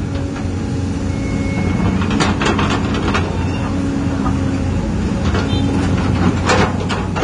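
Radio-controlled Komatsu PC360 scale hydraulic excavator running, its motor and hydraulic pump giving a steady hum that shifts slightly in pitch as the controls are worked. Over it come the scraping and crackling of the bucket digging into dirt and stones, most sharply about two to three seconds in and again near the end.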